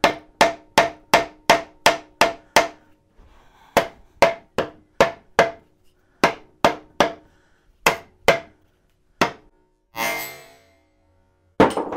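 Wooden mallet striking the cylinder head of a Reliant 700cc engine again and again to shock it loose from its corroded studs: about 25 blows in quick runs of roughly three a second, with short pauses between runs. A brief hiss comes about ten seconds in.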